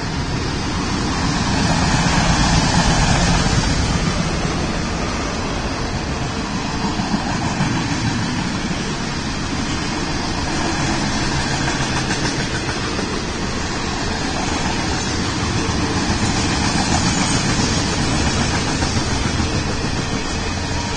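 Union Pacific freight cars rolling past at steady speed: a continuous rumble and rattle of steel wheels on rail that swells and eases, with a few sharper clanks about seven seconds in.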